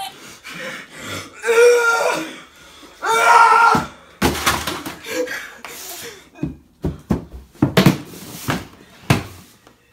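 Two loud wordless vocal cries from a person, followed by a run of thumps and knocks as a body hits and flails on the floor against furniture.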